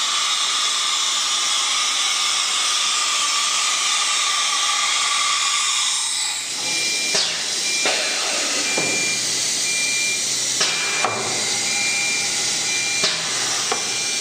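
Automatic tool change on a 1325 ATC CNC router. A steady hiss with a faint whine runs for about six seconds, then a series of sharp metallic clicks and clunks as the tool holders are released and clamped, over a short beep that repeats every half second or so.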